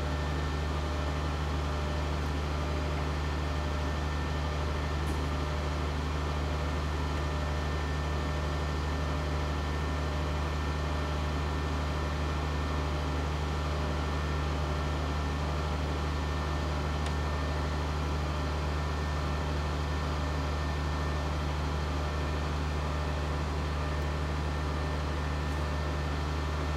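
Bucket truck's engine running steadily, a constant low drone with no change in pitch.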